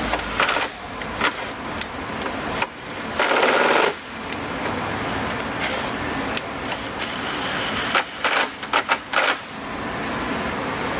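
Cordless impact driver running bolts into a motorcycle's plastic lower fairing in short rattling bursts: two brief bursts at the start, a longer run about three seconds in, and a quick series of short bursts about eight seconds in.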